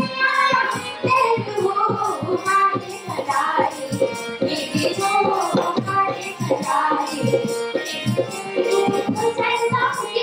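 Himachali folk music for the Bilaspuri Gidda dance: voices singing a traditional song over a steady drumbeat.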